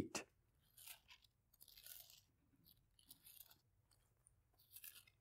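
Faint rustling of thin Bible pages being turned, in several short, scattered bursts.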